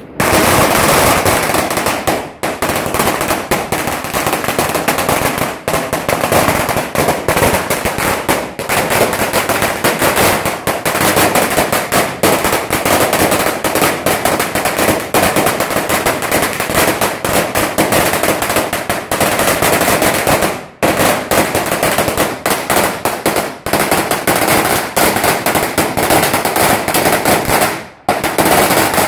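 Firecrackers exploding at ground level in a rapid, continuous rattle of sharp bangs, like machine-gun fire. The bangs dip briefly about two, twenty-one and twenty-eight seconds in.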